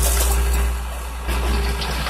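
Rear-loading garbage truck's engine and hydraulics running under load as it lifts and tips a dumpster into the hopper, with a low rumble and a steady whine. A sharp clatter at the start and another about a second and a half in.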